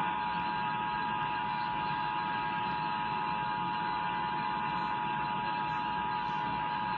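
Emergency Alert System two-tone attention signal: two steady notes sounded together and held without a break over a hiss of noise, marking the start of an EAS Required Monthly Test on television.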